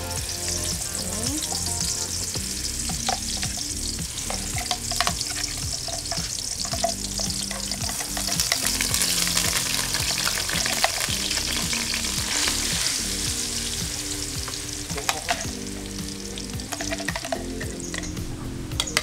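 Blended spice paste sizzling as it is sautéed in hot oil in a wok, stirred with a wooden spatula that scrapes and taps the pan now and then. The sizzle swells about halfway through.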